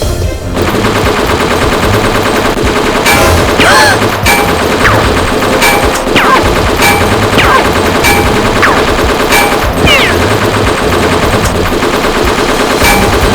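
Rapid gunfire sound effects, dubbed over a pulsing music track, with a few short falling whistles among the shots.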